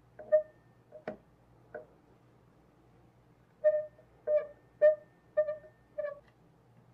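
Short metallic clinks, each with a brief ringing tone, from the bearing housing of a stopped electric motor being taken apart to change its rolling-element bearing. Three scattered clinks come first, then five at an even beat, a little under two a second.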